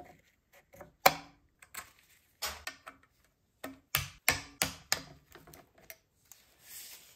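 Irregular clicks and knocks of a small ratchet with a T30 Torx bit and metal tools working the three bolts of a blow-off valve on a turbocharger's aluminium compressor housing, the loudest click about a second in and a quick run of clicks around the middle.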